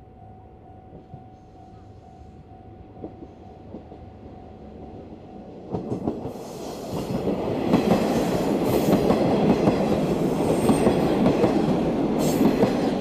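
Red KiHa 400/KiHa 56 tatami-car diesel railcars passing close by. The train comes up faintly and grows loud about six seconds in. The wheels then clack over the rail joints in quick succession.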